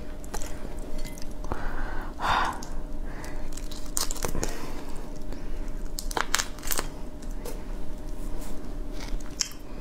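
Close-up crackling and tearing of a large shrimp's shell being peeled apart by hand, in scattered sharp clicks and short crinkly bursts.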